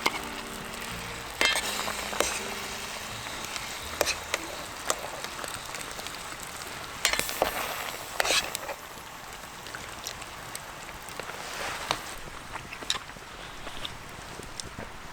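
Food sizzling in a frying pan, a steady hiss with sharp crackles and clicks now and then.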